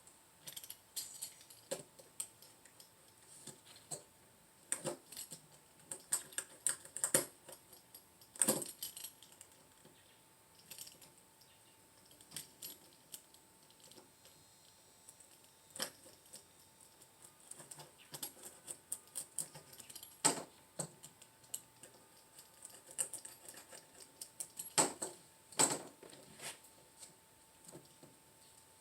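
Irregular light clicks and taps, some in quick clusters, of a spline tool and the screen frame being handled as a rubber spline is pressed into the frame's groove to hold new window screen.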